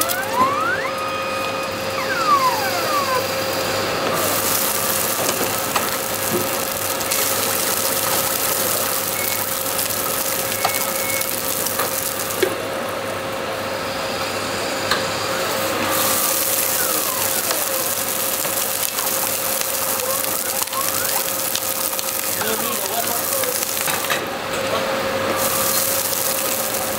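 Automatic stir-fry machine cooking in its pan: a steady hiss of food sizzling over a constant machine hum, with a few rising and falling whines. The sizzle drops away twice for a few seconds.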